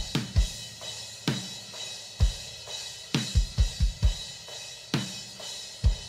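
A drum kit playing on its own: bass drum and snare hits, a quick run of kicks about halfway through, over ringing cymbals. The last hit near the end is left to ring out and fade.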